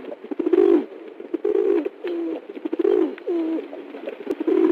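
Domestic pigeon cooing: a string of low coos in several short phrases, some ending in a falling note.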